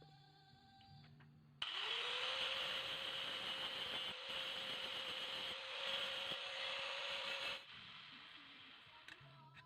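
Electric grinder working the steel of an old saw blade: the motor whines up to speed as it starts, then holds a steady pitch under a loud grinding hiss for about six seconds before cutting off abruptly.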